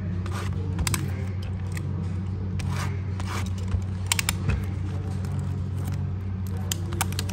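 Cardboard trading-card hobby box being opened by hand: scattered scrapes, rustles and light clicks of cardboard and wrapping, over a steady low hum.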